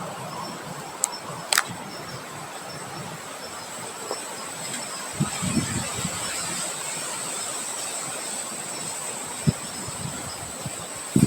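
Wind blowing steadily, with a thin, steady high-pitched tone running through it. A couple of sharp clicks come early, and a few short low thumps follow later.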